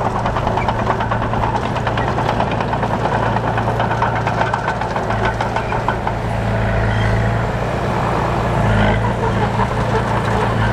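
Diesel engine of heavy road-building machinery running steadily, a deep hum with a fast clatter over it.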